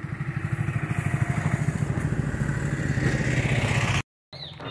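A vehicle engine running steadily with a fast, low pulsing beat, growing louder over the first two seconds, then cut off abruptly about four seconds in.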